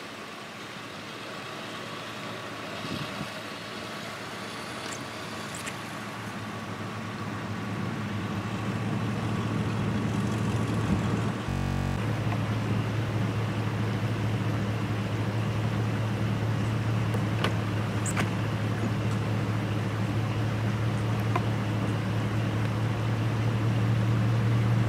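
An idling vehicle gives a steady low hum under a steady hiss. The sound cuts briefly about halfway through and comes back with the hum much stronger.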